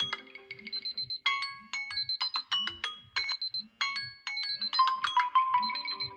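Smartphone ringtone playing a melodic electronic tune of short, bright mallet-like notes over a steady beat of about two a second.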